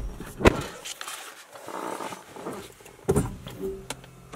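Clicks and knocks in a car cabin as the Lexus CT200h's push-button power switch is reached for and pressed. About three seconds in there is a short low beep, followed by a faint steady hum.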